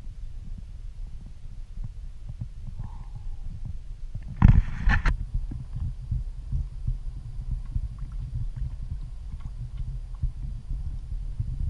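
Low, steady rumble with many soft, irregular thumps from water slapping the hull of a clear canoe, picked up by a camera mounted on the boat. A short, loud, noisy burst about four and a half seconds in cuts off sharply.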